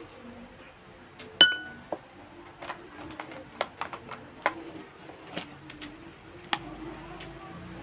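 Small hard makeup containers and tools being handled: one sharp clink that rings briefly about a second and a half in, then a scattered run of lighter clicks and taps.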